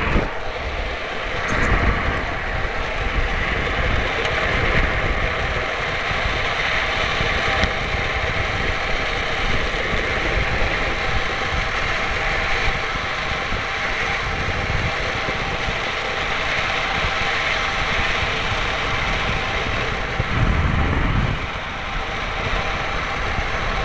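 Steady rush of wind and road noise from a small vehicle rolling fast down an asphalt road, with wheels rumbling on the tarmac and wind buffeting the microphone mounted on the vehicle.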